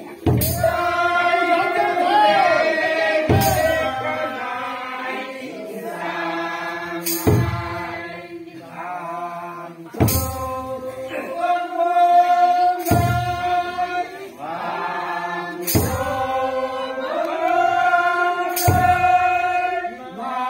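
A group singing a slow, chant-like traditional dance song with long held notes, with a large drum struck once about every three seconds.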